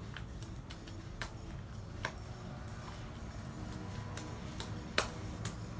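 Homemade slime being squeezed and pulled by hand, giving irregular sharp clicks and small pops, with one louder snap about five seconds in.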